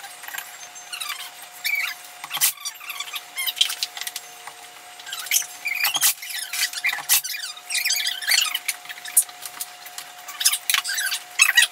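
A cordless brad nailer fires a few times into trim molding on a wall, each shot a sharp knock a few seconds apart. Short high squeaky chirps come and go throughout.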